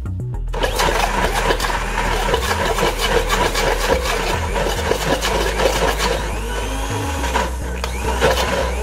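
Electric countertop blender grinding raw chicken pieces with eggs into a thick paste, a loud, rough grinding noise that starts about half a second in.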